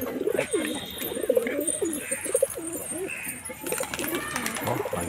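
A flock of domestic pigeons cooing, many calls overlapping continuously, with scattered light clicks among them.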